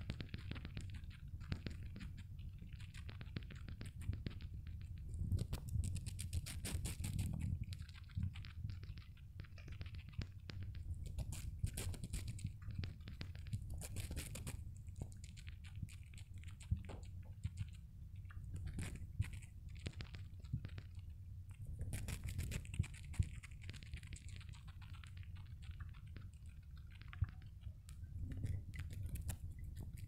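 Dwarf hamster chewing and nibbling a piece of apple close to the microphone: many quick, small wet crunches and clicks in irregular runs, over a low steady rumble.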